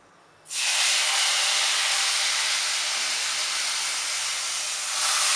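Hot tempering oil with mustard, cumin and fenugreek seeds, hing and turmeric sizzling loudly as it is poured into the boiled, wet arbi-leaf vegetable. The sizzle starts suddenly about half a second in and holds steady.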